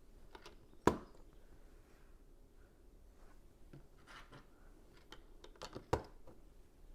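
Plastic Lego pieces being handled and pressed together: scattered small clicks and rattles, with two sharp clicks, one about a second in and one near the end.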